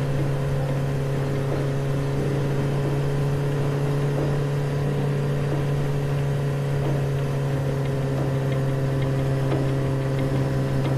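Scooter engine running steadily, a constant low hum that holds one pitch throughout.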